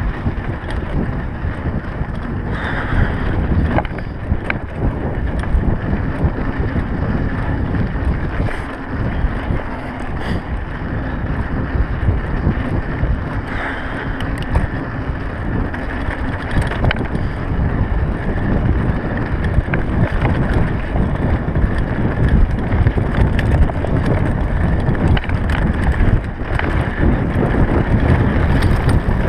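Mountain bike ridden fast on a dirt track: loud wind buffeting the action camera's microphone over the rumble of knobby tyres on gravel, with occasional short rattles and clicks from the bike over bumps.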